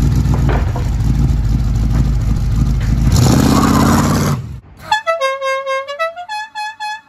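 A vehicle engine running loudly, swelling about three seconds in and then stopping. It is followed by a horn playing a short tune of separate held notes that step up and down in pitch.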